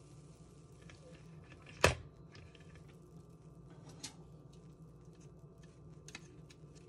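Light kitchen handling sounds at an open mini waffle maker: one sharp click about two seconds in, a softer click about four seconds in, and faint taps near the end as metal tongs reach in to lift out the waffle. A faint low steady hum runs underneath.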